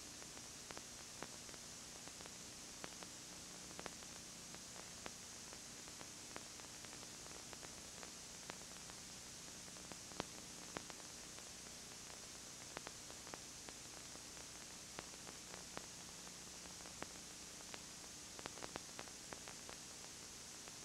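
Steady hiss with a faint low hum and scattered small clicks and crackles: the noise floor of a videotape transfer carrying no recorded sound.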